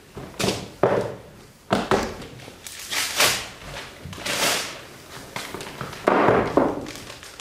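Several sudden knocks and thuds from a metal-framed chair being handled and searched on a stage floor, with stretches of rustling in between.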